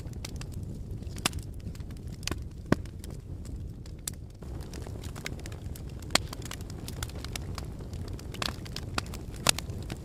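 Wood and paper fire burning in a metal fire tray: sharp crackles and pops at irregular moments, a second or more apart, over a steady low rumble. The loudest pop comes near the end.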